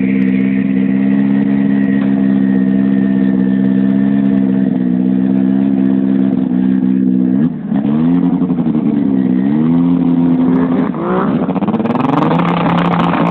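Snowmobile engine running loud and steady, then revved up and down about three times as the sled sits stuck in slush. Near the end a rushing, spraying noise joins the engine.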